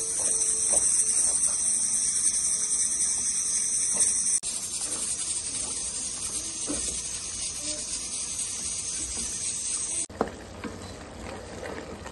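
Chopped leafy greens sizzling in a hot pan while a wooden spoon stirs them, with faint scrapes against the pan. The hiss changes abruptly twice, about four seconds in and near the end.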